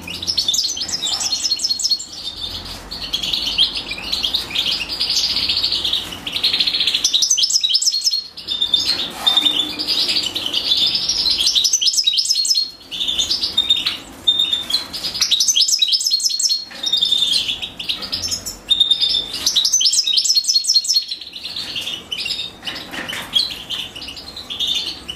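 European goldfinches, a hen and her brood, chirping in dense, fast runs of high twittering calls that break off briefly every few seconds.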